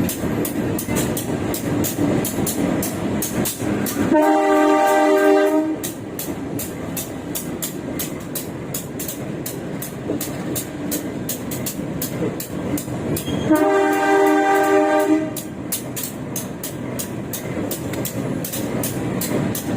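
A diesel locomotive's horn sounds twice, each a loud chord-like blast of about a second and a half, once about four seconds in and again about nine seconds later, as a warning for level crossings. Between the blasts, the carriage's wheels run over the rails with a fast, even clicking, heard loudly from inside the train's toilet compartment.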